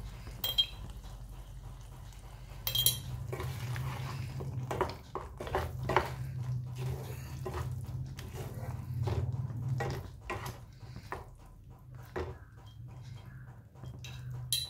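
Wooden spatula stirring and scraping thick tomato pickle in a metal pan, with irregular knocks of utensils against the pan and a few sharp clinks, the clearest about half a second and three seconds in. A steady low hum runs underneath.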